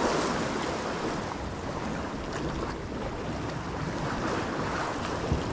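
Sea water lapping and wind on the microphone, a steady rushing noise.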